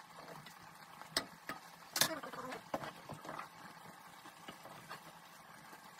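Kitchen handling sounds: a wooden spoon stirring in a metal pot, with scattered clicks and knocks of utensils. The loudest knock comes about two seconds in, and a quick cluster follows around three seconds.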